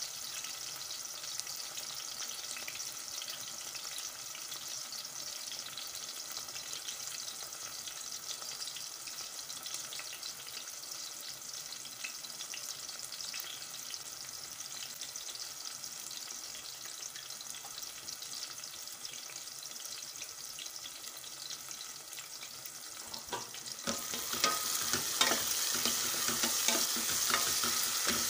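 Shallots, garlic, green chillies and tomatoes sizzling in oil in a stainless steel pot, the onion-tomato base being sautéed until soft. About 24 seconds in, a wooden spatula starts stirring, scraping and clicking against the pot, and the sizzling grows louder.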